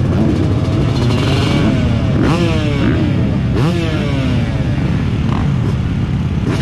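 Several motocross bikes idling together at the start line, their engines blipped hard in quick revs about two seconds in, again about three and a half seconds in, and once more right at the end.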